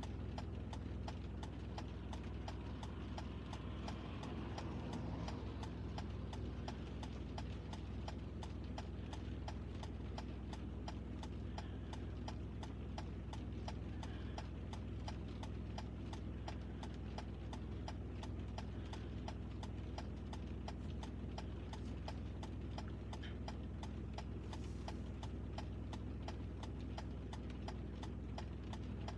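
Car turn-signal or hazard-light indicator ticking steadily, about three clicks a second, over a low steady cabin hum.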